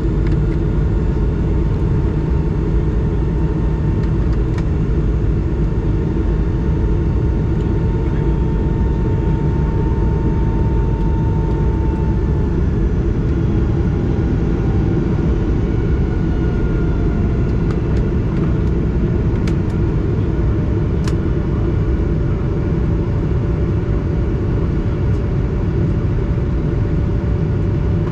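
Cabin noise of an Airbus A220 in its climb: the steady roar of its Pratt & Whitney PW1500G turbofans and the rushing air, heard from inside the cabin. A faint higher whine in the noise slides lower about halfway through.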